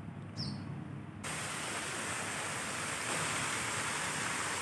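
A row of floating pond fountains spraying and splashing: a steady rushing hiss that starts abruptly about a second in. Before it, a bird gives one short falling chirp.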